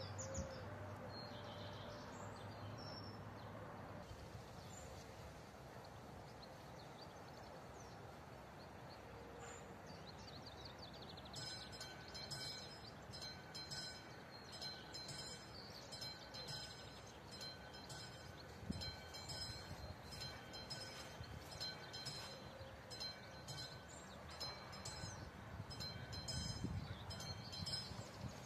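Level-crossing warning bell of an AŽD 71 crossing signal, a classic electromechanical bell, ringing with rapid repeated strokes from about a third of the way in. It is warning that a train is approaching. Before it starts there are only faint bird chirps.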